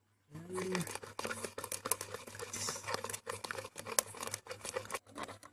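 Steel spoon beating Dalgona coffee mixture (instant coffee, sugar and hot water) by hand in a cup, whipping it toward a froth. It makes rapid, irregular clinking and scraping against the cup wall.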